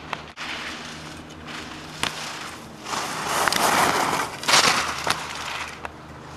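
Skis carving on hard-packed snow close by: a scraping hiss that comes in two loud swells, about three and four and a half seconds in, as the skier turns past.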